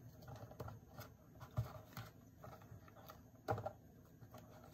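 Hands handling a small cardstock box with a ribbon bow on a table: faint light taps and paper rustles, with a sharper knock about three and a half seconds in.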